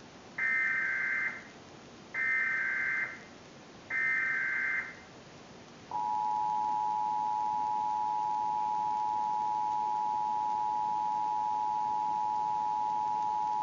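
Emergency Alert System tones: three short bursts of the SAME data header, each about a second long, followed about six seconds in by the steady two-tone attention signal (853 and 960 Hz) held continuously. Together they open an EAS broadcast, here a national test of the Emergency Alert System.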